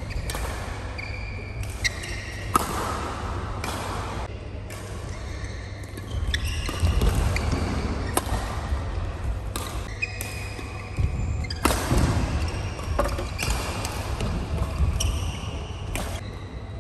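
Badminton play in a large hall: sharp cracks of rackets striking the shuttlecock, short high squeaks of shoes on the court mat, and thuds of footwork, with the hall's reverberation after each hit.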